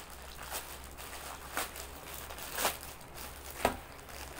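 Plastic bag crinkling as it is handled and pulled open by hand, in several short crinkles, the loudest two in the second half.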